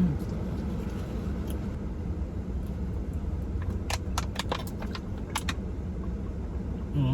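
Steady low rumble, with a quick run of sharp clicks and rattles about four to five and a half seconds in.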